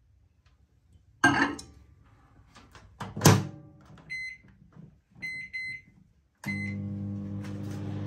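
Loading and starting a Von microwave oven: a knock about a second in and a louder thud about three seconds in as the jar goes in and the door is shut, then four short keypad beeps as the time is set, after which the oven starts running with a steady hum.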